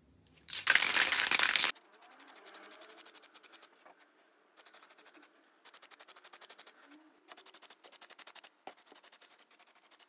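Aerosol spray can of white adhesion primer spraying: a loud hiss about half a second in that lasts about a second, then a fainter hiss that pulses rapidly, about ten times a second, in several short stretches.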